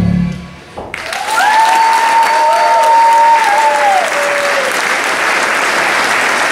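Dance music cuts off and, about a second later, an audience breaks into steady applause, with a couple of long, high held cheers over the clapping in the first few seconds.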